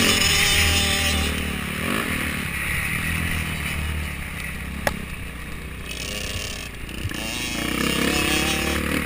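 Motocross dirt bike engine heard from a helmet-mounted camera, revving on and off the throttle. It is loud at first, eases off through the middle, then climbs in pitch again near the end. There is one sharp knock about five seconds in.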